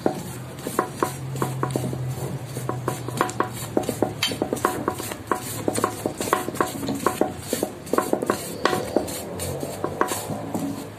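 Silicone spatula scraping whipped cream across a cake and clicking and clinking against the rim of a stainless steel cake ring, in many quick irregular taps while the cream is smoothed flat.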